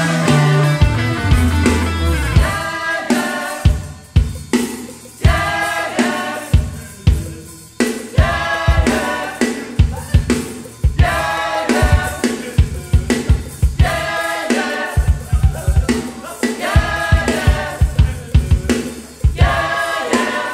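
Studio band recording: a drum kit plays sharp snare and bass-drum accents under a sustained melodic lead line. The low bass part drops out about two seconds in.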